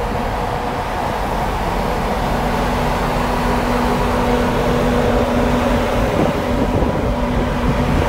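A vehicle running steadily: an even mechanical drone with constant hum tones, a low hum joining about two and a half seconds in.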